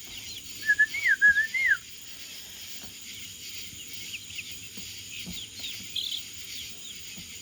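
Bird calls: a short run of clear whistled notes that glide up and down, about a second in, over steady faint high chirping in the background.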